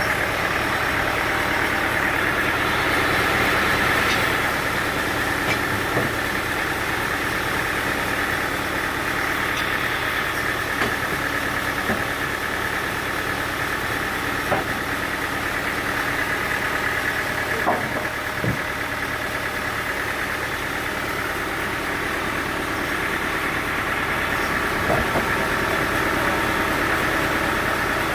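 Sawmill machinery running steadily, an even engine-like hum with a few short knocks scattered through it.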